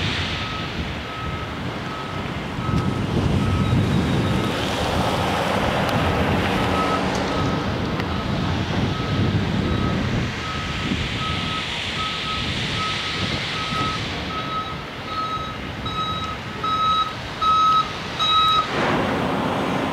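A vehicle's backup alarm beeps steadily about once a second over a low engine rumble and wind noise. The beeps grow louder near the end and then cut off.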